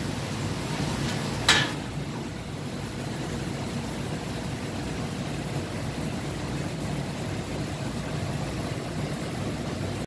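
Steady low machine hum, with a single sharp, brief noise about one and a half seconds in.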